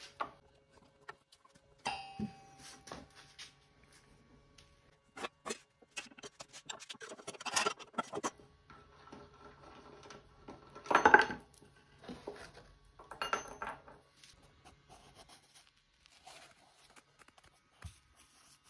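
Metal hand tools and hardware clinking and rattling on a wooden tabletop, in scattered clicks with a brief metallic ring about two seconds in and louder clatters near the middle, while bolts are driven with a hex key.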